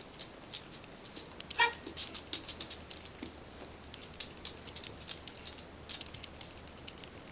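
Irregular light clicks, taps and rattles from a dog working with ring-toss rings: its claws on a hard floor and the rings knocking as it handles them.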